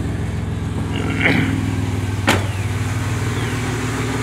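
A 1998 Chevy 1500's 4.3-litre Vortec V6 idling steadily just after starting, running on a freshly replaced fuel pressure regulator. A single sharp knock comes about two seconds in.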